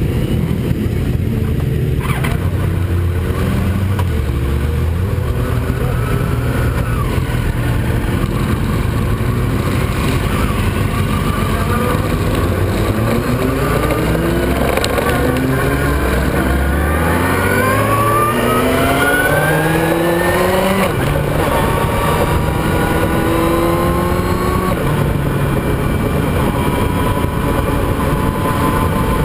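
Motorcycle engine heard onboard: running low and steady at first, then accelerating hard through several gears, each rise in revs broken off by an upshift, before settling to a steady high-speed drone in the last third.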